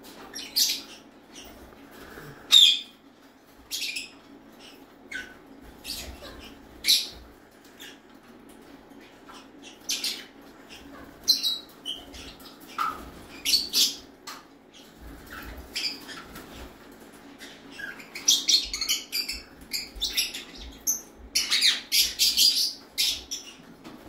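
Indian ringneck parakeets giving short, sharp chirps and squawks at irregular intervals, which crowd together into a rapid run of calls near the end.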